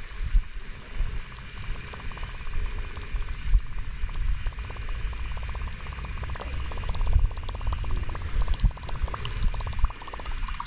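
Wind buffeting the microphone in uneven gusts, with a fast, fine ticking of a fishing reel being cranked from about two seconds in until near the end, likely retrieving a topwater bait. A steady high insect-like drone sits underneath.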